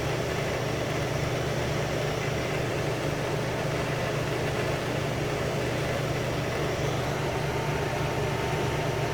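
Two air conditioners running together, a steady low mechanical hum with fan noise that does not change.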